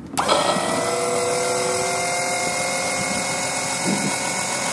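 A small electric oil extractor pump switches on abruptly right at the start and runs with a steady whine, drawing engine oil out of a lawn mower's crankcase through a tube in the dipstick fill tube.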